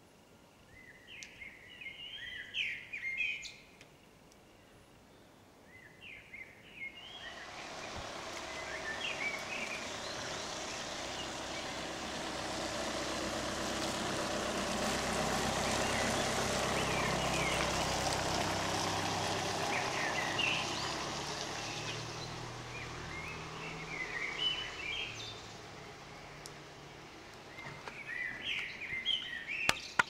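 A car passes slowly along a snow-covered street: its tyre noise and engine swell over several seconds, peak midway and fade away. Small birds chirp in short bursts near the start, around the middle and near the end.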